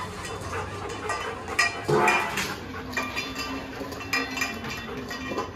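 A pack of dogs eating from steel bowls: bowls clinking and knocking against the tiled floor in many small clicks, with a dog giving a brief louder vocal sound about two seconds in.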